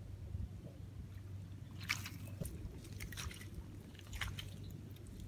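Wet mangrove mud squelching and crackling: a run of short wet clicks and pops from about two seconds in, over a low steady rumble.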